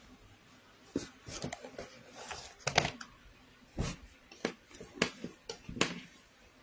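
Things being handled close to the microphone: a series of about ten sharp knocks and clicks with rustling between them.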